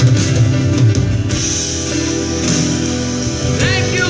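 Church worship music led by guitar, with held chords and sustained tones. A voice rises briefly near the end.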